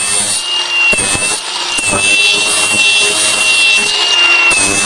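Power grinder sanding down a weld bead on cast iron: a steady high motor whine over the rasp of the abrasive on the metal.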